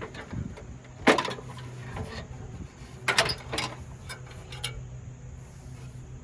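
Sharp knocks and clacks of car body trim parts being handled and pulled off during front-end disassembly: one loud knock about a second in, a quick cluster around three seconds in and another near four and a half, over a steady low hum.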